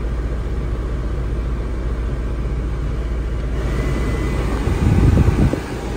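Car air-conditioning blower fan running over a steady low engine idle. Its airy rush grows louder about three and a half seconds in as the fan-speed knob is turned up. Near the end there is a brief, loud low buffeting rumble.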